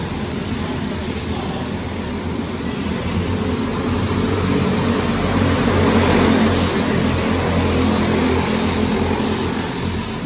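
A pack of racing karts' small engines buzzing at racing speed as they run past, loudest about six seconds in as the field goes by, then easing off. The sound carries in a large indoor arena hall.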